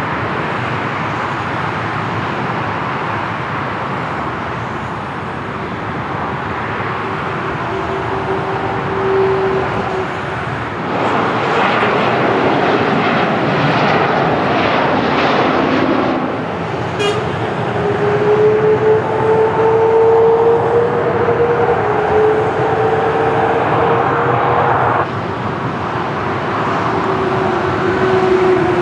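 Jet airliner engines at an airport: steady noise with a humming tone that slowly shifts in pitch, loudest in the middle as a regional jet flies past on approach. The level drops suddenly a few seconds before the end.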